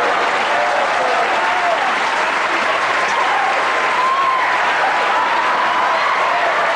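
Studio audience applauding steadily, with voices calling out through the clapping.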